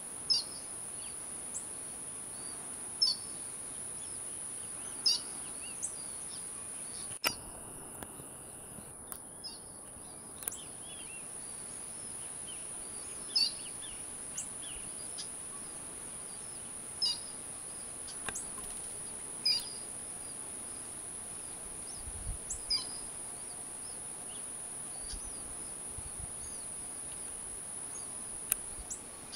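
Bird chirps every couple of seconds over a steady high hiss, with one sharp click about seven seconds in.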